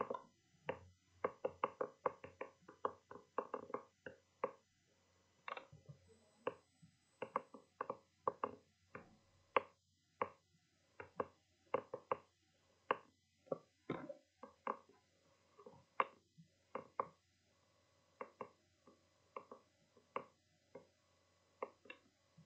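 A run of sharp, irregular clicks and knocks, often several a second in quick bunches with short pauses between them. A faint steady hum comes in past the middle.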